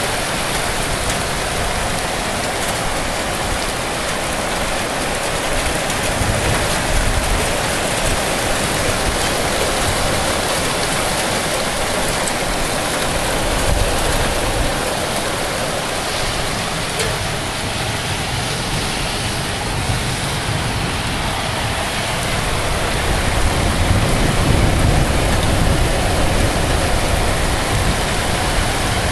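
Heavy rain pouring down steadily in a downpour, with a low rumble swelling a few times and the rain growing louder for a few seconds near the end.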